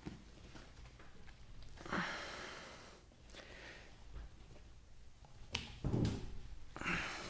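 Polyester double-braid lacing line being pulled taut through the metal grommets of a catamaran trampoline: a rasping swish of rope about two seconds in, then a knock and a few more short scrapes of rope and handling near the end.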